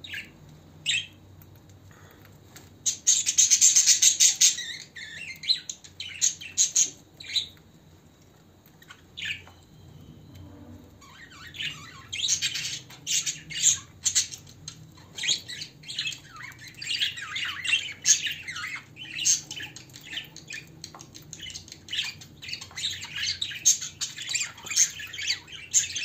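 Budgerigars chirping and chattering. There is a loud burst of chatter about three seconds in, a quieter stretch near the middle, and then almost continuous chirping from about halfway on.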